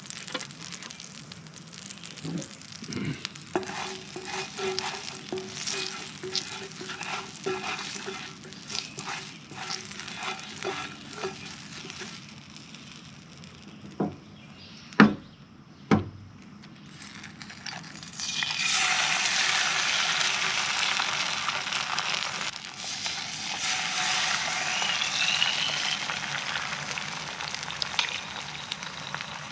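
Eggs frying in hot oil in a wok on a camp stove. First the oil crackles lightly, then two sharp knocks come about halfway through as eggs are cracked on the pan. A loud sizzle starts as the first egg hits the oil, and a second swell of sizzle follows a few seconds later.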